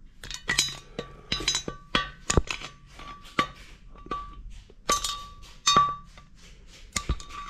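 Wide flat screwdriver prising valve stem oil seals off a Rover K-Series aluminium cylinder head: a run of sharp metallic clicks and clinks as each seal is twisted and pops off, several ringing briefly.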